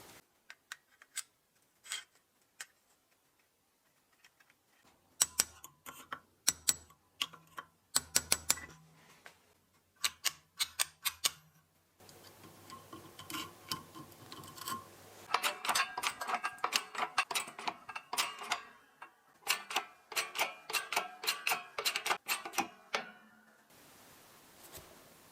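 Hand work on metal parts: a run of sharp clicks, clinks and knocks of tools and steel pieces. It is sparse at first, then busier with a ringing metallic clink in the second half.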